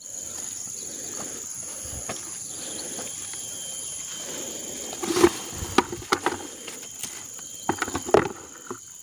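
Steady high-pitched drone of forest insects. From about halfway through, a cluster of sharp crunches and knocks from footsteps and rustling through leafy undergrowth.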